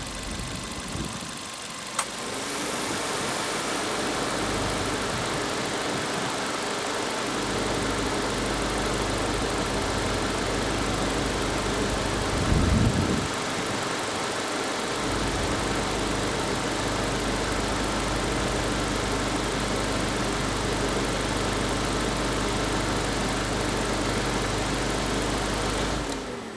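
Suzuki Jimny Sierra JB74's 1.5-litre four-cylinder engine idling. There is a click about two seconds in, after which it grows louder, and a brief louder surge around the middle. It stops abruptly near the end.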